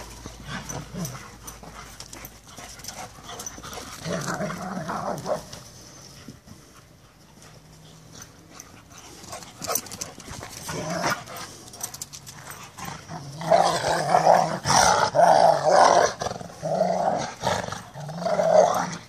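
Rottweilers play-growling as they chase and wrestle, in a short bout about four seconds in and a longer, louder run of growls over the last five or six seconds.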